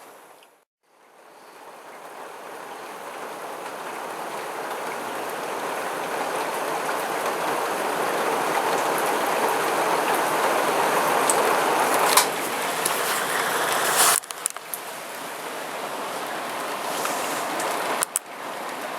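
Heavy rain falling, a steady hiss that swells gradually. It drops out briefly near the start and falls off sharply twice in the second half.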